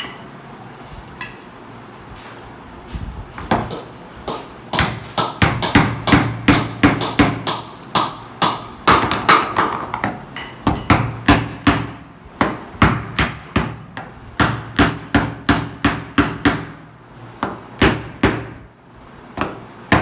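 Repeated hammer blows, about two or three a second after a short lull in the first few seconds: a furniture handle being knocked into place in a panel until it sits tight.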